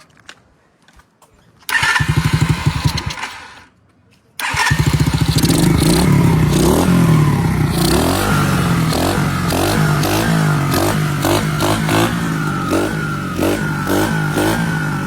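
Small Kayo kids' dirt bike engine running after its carburetor was cleaned: it runs briefly about two seconds in and dies away, then a couple of seconds later runs again steadily with the throttle blipped up and down.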